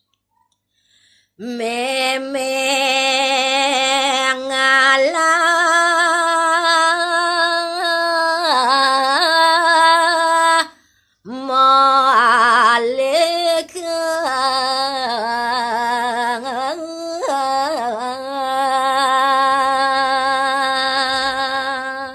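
A woman singing a Balinese pupuh (tembang verse of a gaguritan) solo with no instruments, in long held notes with a wavering vibrato and melismatic turns. She comes in about a second and a half in, breaks off briefly for breath about halfway, and sings on.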